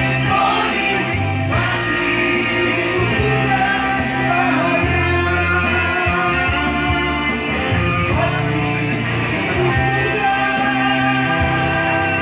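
A voice singing a song with band accompaniment, guitar among the instruments, with long held notes.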